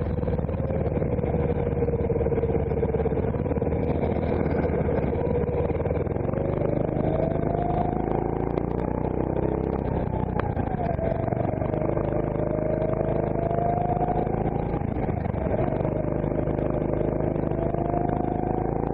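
CRG Centurion rental go-kart's engine running on a lap. Its note holds low for the first few seconds, climbs under acceleration, drops sharply about ten seconds in as the throttle comes off for a corner, then climbs again twice with a short dip between.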